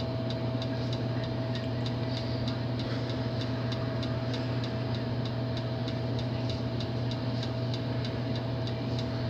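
Steady room hum with a thin steady whine over it, and a light, regular ticking about three times a second.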